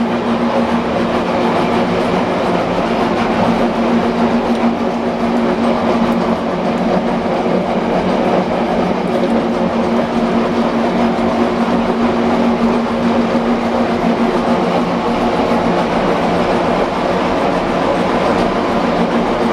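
5D32 gear hobbing machine running steadily as its hob cuts the teeth of a helical pinion shaft: a continuous mechanical hum with a steady rattle, unchanging throughout.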